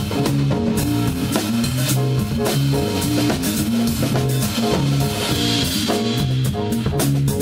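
Live rock rehearsal: a drum kit played hard, with steady cymbal wash and crashes over kick and snare, and an electric bass playing a repeating riff through an amplifier.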